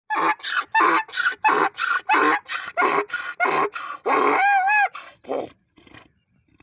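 Donkey braying: a fast run of rasping hee-haw pulses, about three a second, with a brief pitched whistling note near the end before the bray winds down.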